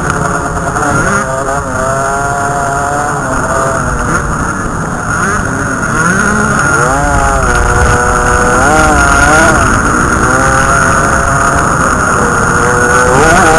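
Dirt bike engine revving up and down while riding a dirt track. Its pitch rises and falls repeatedly as the throttle opens and closes.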